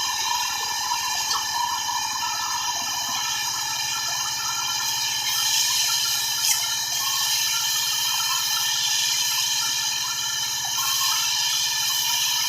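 Electric circular saw running steadily, a constant high whine over hiss with no change in speed.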